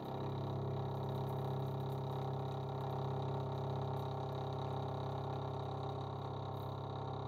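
TRAK DPM RX2 bed mill's spindle running steadily as its cutter mills a metal part, the table fed along by hand with the handwheel.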